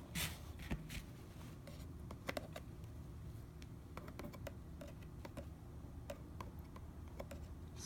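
Faint handling noises: scattered small clicks and taps as a sealed cardboard collectible box is turned in the hands, over a low room hum.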